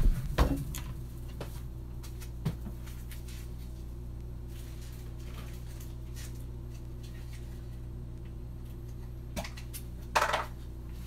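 A loud bump as someone gets up from a leather office chair, then an empty room with a steady low hum and a few faint clicks. About ten seconds in there is a short clatter of handling as someone comes back.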